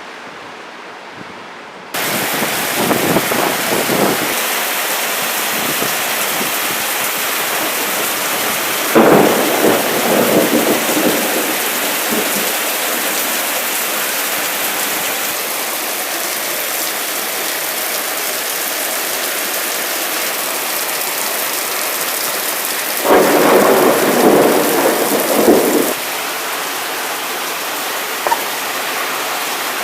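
Heavy thunderstorm: torrential rain hissing steadily, with thunder crashing in three louder swells, the strongest about a third of the way in and around three-quarters of the way through.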